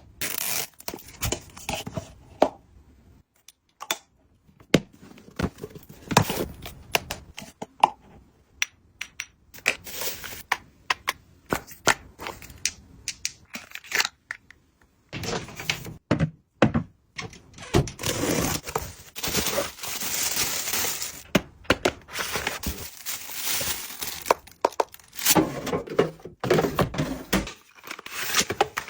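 Packaging being handled and opened by hand: irregular taps, knocks and thuds, with longer stretches of rustling and tearing in the second half.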